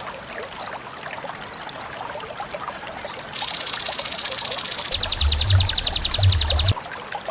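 A small songbird singing a loud, rapid, very high trill of about three seconds that starts a little before halfway. Partway through it turns into evenly repeated separate notes, then stops suddenly. Before it there are only faint scattered chirps.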